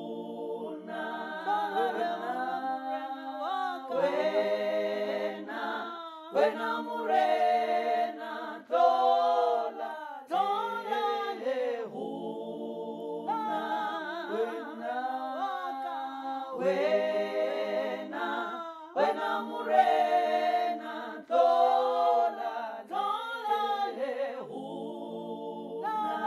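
A cappella song in several-part harmony, one woman's voice layered into a small choir of six parts, with no instruments.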